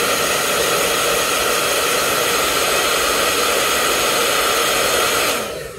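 Hot-air blower running steadily, a rush of air with a faint whine, heating the old contact cement between a sneaker's sole and upper to soften it so the sole can be pulled off. It dies away near the end.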